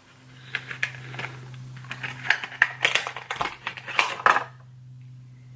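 Cosmetics packaging being handled and opened by hand: a run of quick clicks, crackles and rustles for about four seconds, then quieter handling, over a steady low hum.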